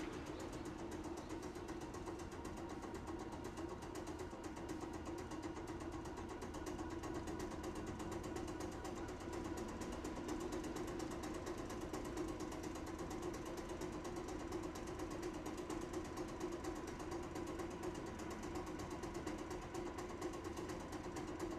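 Stopped Tosaden street tram, car 625, with its onboard machinery running: a steady mid-pitched drone with a fast, even mechanical chatter and no change throughout.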